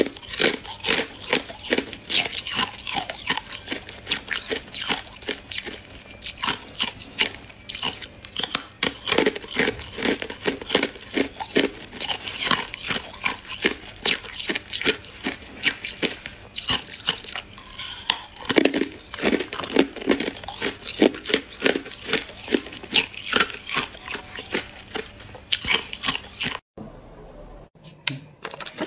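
Hard clear ice being bitten and chewed: a dense, continuous run of sharp crunches and cracks that stops about 27 seconds in.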